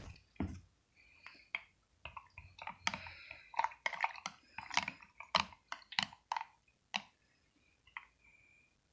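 Cool water poured from a metal tumbler into a glass mason jar, heard as a faint run of light clinks and taps with a brief splash in the middle.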